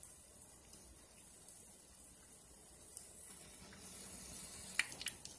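Hot oil sizzling steadily around corn fritters shallow-frying in a pan, with a few sharp clicks near the end.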